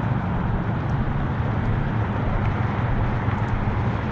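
Steady low hum and rumble of vehicle engines, with no sudden sounds.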